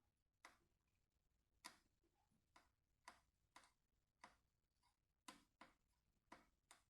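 About ten faint, sharp clicks at irregular half-second intervals: a precision screwdriver bit catching and slipping on the tiny screws of an iPhone 11 while the right bit is being found.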